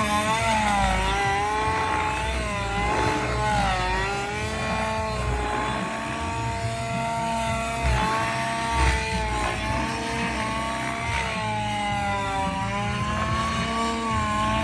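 Gas-powered RC helicopter's two-stroke engine, fitted with a Quietpower muffler, running in flight along with its rotor. The pitch rises and falls steadily as the machine is put through manoeuvres.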